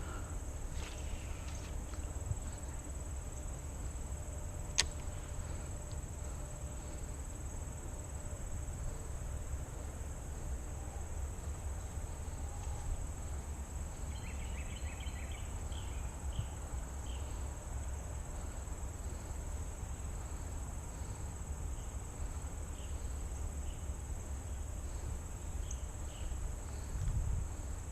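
Insects buzzing in one steady, high-pitched trill, over a low rumble, with a single sharp click about five seconds in.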